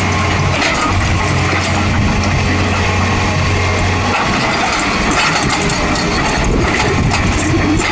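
An excavator's diesel engine running, with metallic clatter and knocks from the machine working. Its steady low drone drops away about four seconds in, leaving a rougher, clattering sound.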